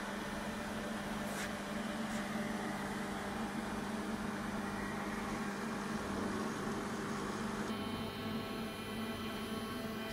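Steady mechanical hum with a strong low drone from running shop machinery. About eight seconds in the sound changes abruptly and several steady tones come in.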